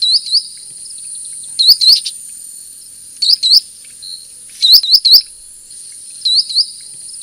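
Sandpiper calling: short, high, clipped notes in pairs or threes, the groups repeating about every second and a half over a steady high hiss.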